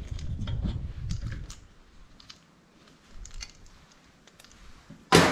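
Small clicks and rubbing as the overrunning clutch of a Briggs & Stratton 8 hp engine's pull starter is unscrewed by hand from the crankshaft, then a single loud, sharp clank near the end.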